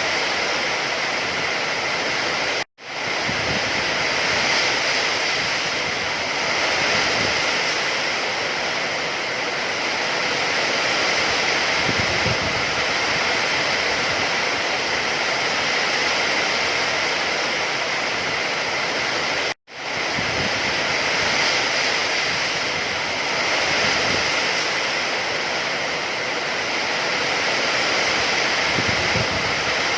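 Steady rain, a continuous even hiss, which cuts out for an instant twice, about 3 seconds in and again about 20 seconds in, before swelling back.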